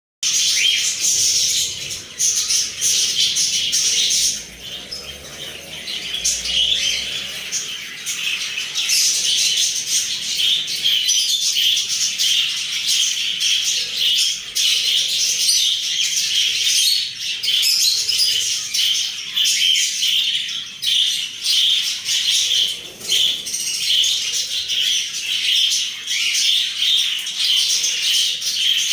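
Many caged birds chirping and squawking at once: a continuous, busy high-pitched chatter that runs without pause.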